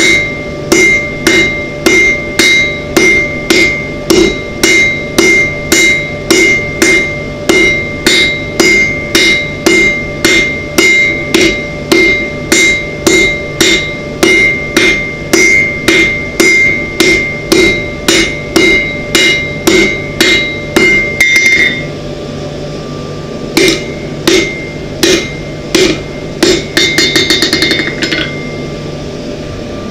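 Blacksmith's hand hammer striking a red-hot iron bar on an anvil, steady blows about two a second with the anvil ringing between them. After a short pause near the end, a few more blows and a quick flurry of light taps.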